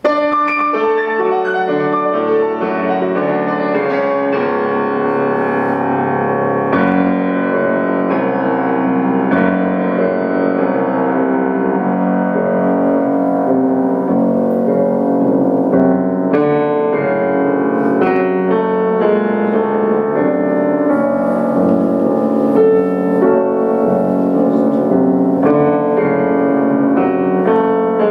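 Grand piano played solo: full, sustained chords ringing over deep bass notes, at a steady, fairly loud level.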